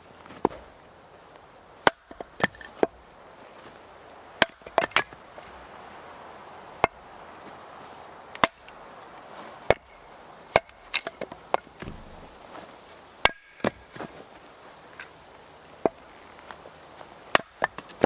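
A small, freshly sharpened axe chopping into log rounds, with sharp, irregular strikes, sometimes several in quick succession.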